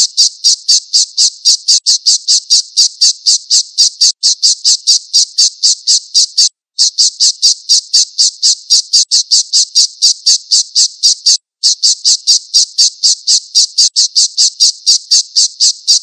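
Alap-alap (small falcon) calling: a rapid string of high-pitched repeated notes, about four or five a second, in three long runs with brief breaks about six and a half and eleven and a half seconds in.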